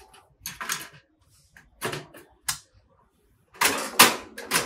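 Portable butane camping stove being loaded: the gas canister is set into its built-in compartment and locked in, giving a series of short clicks and clacks, the loudest about three and a half to four seconds in.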